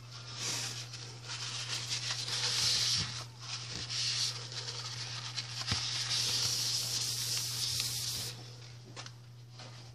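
Paper towel rubbing and wiping across a tabletop, mopping up spilled soap batter; a continuous rubbing that stops about eight seconds in.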